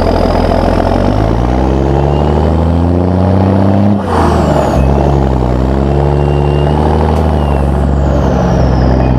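Heavy diesel farm vehicle engine running close by. Its note climbs, drops sharply about four seconds in as it passes, then climbs again.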